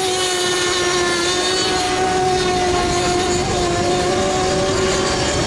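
Several FSR-O 7.5 cc radio-controlled racing model boats running flat out, their small two-stroke engines giving a steady, unbroken whine.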